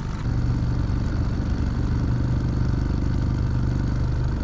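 Boat's outboard motor running steadily at a low, even speed.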